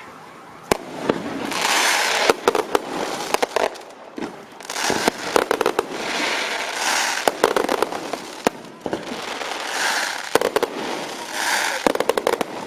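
Fireworks set off from a cart, going off in waves of hissing and rapid crackling, each a second or two long, about every three seconds, with a few sharp single bangs.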